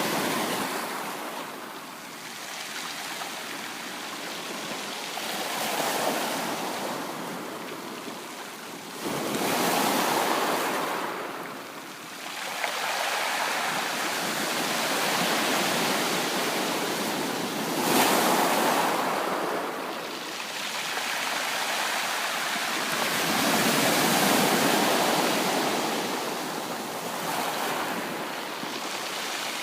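Ocean waves breaking and washing in, the rushing noise swelling and falling away every few seconds.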